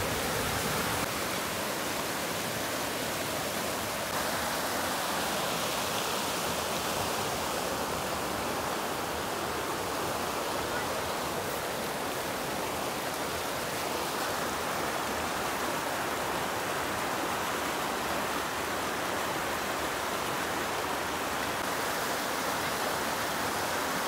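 A fast-flowing, swollen river rushing steadily over rocky rapids. The water is running high and strong, which the filmer puts down to three days of heavy rain flooding it a little.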